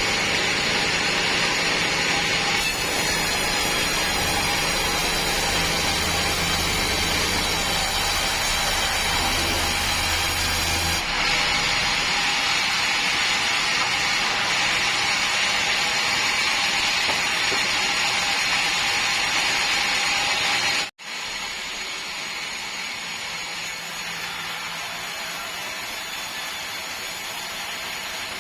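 Sawmill saw machinery running: a loud, steady whine and rush of noise. It changes abruptly twice early on, cuts out for an instant about three quarters of the way through, and then carries on quieter.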